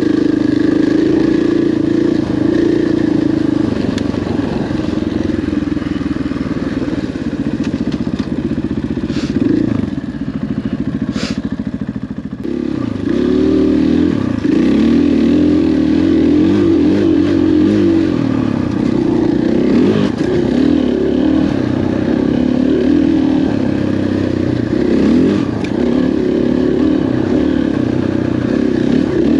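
KTM 500 XC-W dirt bike's single-cylinder four-stroke engine running under way, its pitch rising and falling with the throttle. It drops off for a couple of seconds about ten seconds in, then pulls strongly again.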